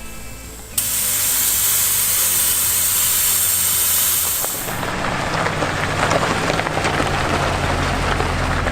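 Compressed air hissing loudly out of a tyre through a quick deflator, starting suddenly about a second in and stopping after about four seconds. It is followed by a vehicle engine running with tyres crackling over a gravel road.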